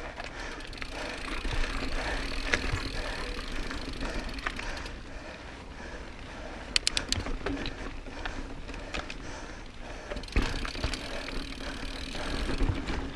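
Mountain bike rolling over a rocky trail: steady tyre noise on rock and grit with scattered knocks and rattles from the bike, and a quick run of sharp clicks about seven seconds in.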